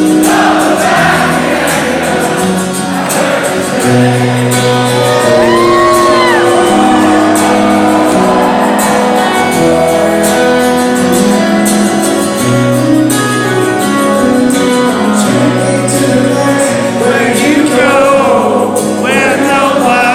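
Rock band playing with singing, heard as a live recording in a large hall.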